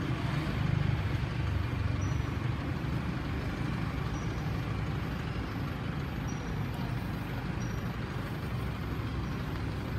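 Steady low rumbling noise with no distinct strokes or pitch. Faint, short high chirps come every second or so.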